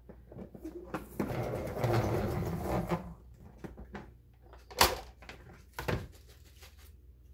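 Pump-knob salad spinner whirring for about two seconds as its basket spins water off rinsed chopped lettuce. Then two sharp plastic knocks as the lid is taken off and set down, the first the louder.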